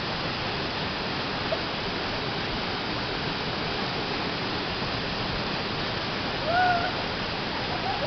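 Steady rush of an 8–10 m waterfall pouring into a pool. One brief call rises over it about six and a half seconds in.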